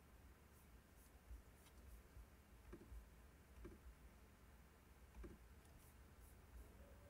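Near silence: faint room tone with a low rumble and a scattering of soft ticks and taps.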